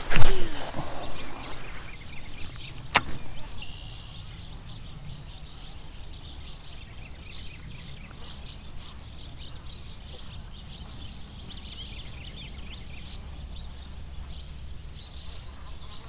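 A fishing rod swishes through the air on a cast right at the start, with a falling whoosh, and a sharp click follows about three seconds in. After that there is quiet pond-side ambience with many short bird chirps over a faint low rumble while the lure is worked back.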